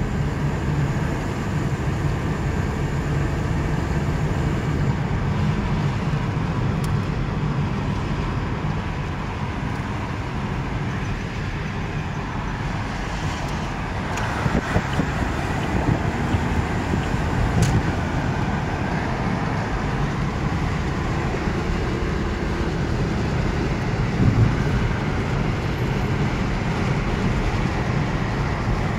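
Steady road and engine rumble heard inside a moving car's cabin, with a few brief knocks and bumps in the second half.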